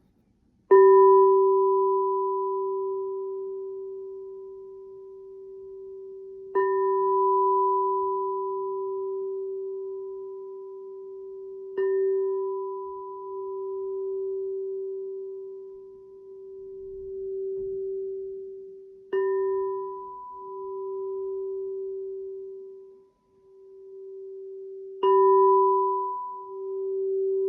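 Singing bowl struck five times, every five to seven seconds, each strike ringing on in a long, slowly fading tone. In the later strikes the ring swells and fades in slow pulses.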